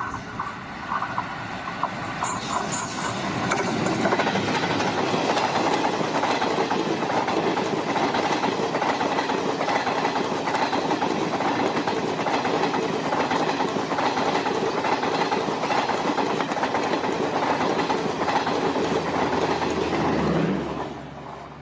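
Diesel-hauled passenger train passing close by, its wheels rumbling and clattering on the rails. The noise builds over the first few seconds, holds steady as the coaches go by, then falls away near the end as the train recedes.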